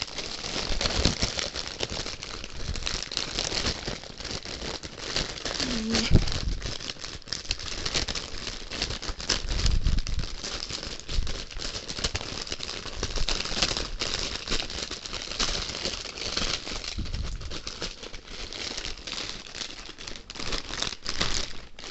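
Thin clear plastic bag crinkling and rustling without a break as it is pulled open and worked off a plush pillow by hand, with a few dull handling bumps underneath.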